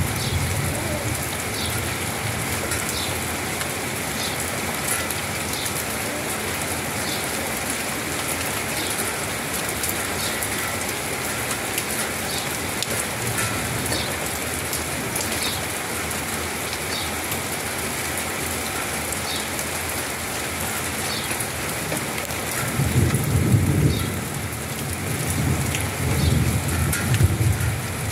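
Rain falling steadily, with two low rumbles of thunder near the end.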